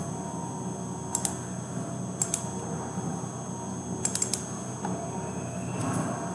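Computer mouse clicking, mostly in quick double-clicks, in three short groups over a steady low hum.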